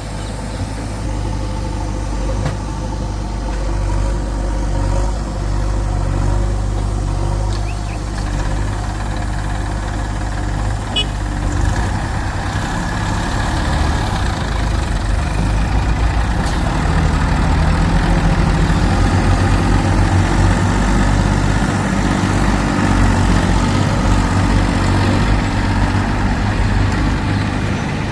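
Diesel engines of a backhoe loader and farm tractors running steadily, getting louder from about twelve seconds in.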